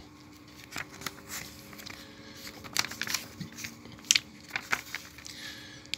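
Glossy magazine pages being turned and handled: scattered soft paper crackles and rustles over a faint steady hum.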